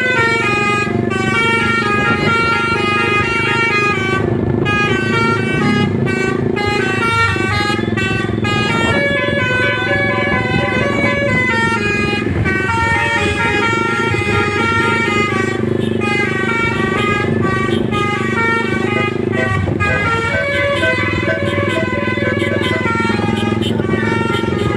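Indonesian 'telolet' bus horn, a multi-tone musical air horn playing quick stepping runs of notes up and down, over and over, with a steady low hum beneath.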